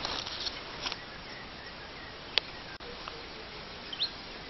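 Steady outdoor background hiss with a few faint clicks, one sharper click about halfway through, and a short high rising chirp near the end.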